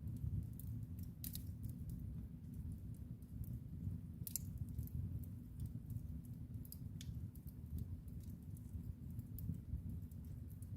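Wood fire burning in a fireplace: a steady low rumble of the flames with irregular sharp crackles and pops, a few louder ones standing out.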